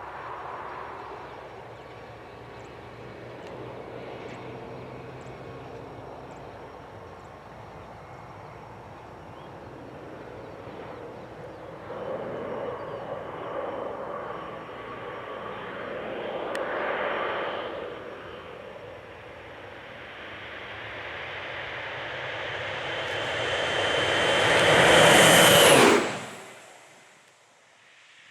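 Air Tractor AT-602 crop-spraying plane's Pratt & Whitney PT6A-60AG turboprop engine, heard farther off at first with swells in level, then growing steadily louder as the plane closes in low and fast. A high steady turbine whine comes up with it to a loud peak near the end, then the sound cuts off suddenly.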